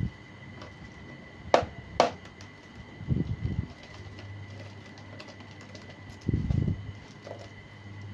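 Handling noise from a laptop being opened: two sharp clicks about half a second apart, then two short low bursts a few seconds apart, over a faint steady high whine.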